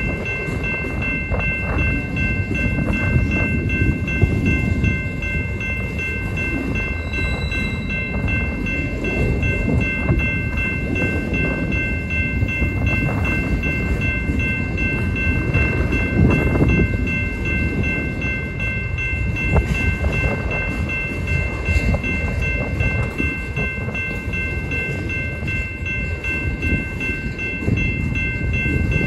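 Freight train's autorack cars rolling past: a steady rumble of steel wheels on rail, with a steady high-pitched whine over it.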